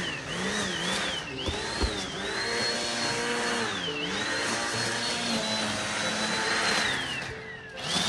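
Corded electric trimmer's motor whining at high speed, its pitch dipping and recovering again and again. Two short knocks come about a second and a half in, and near the end the motor runs down to a lower pitch and then speeds up again.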